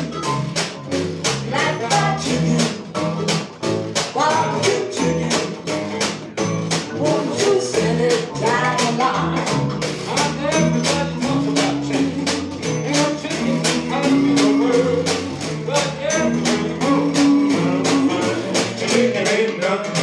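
Swing band playing live: an upright bass walks under a steady percussion beat, with a melody line on top.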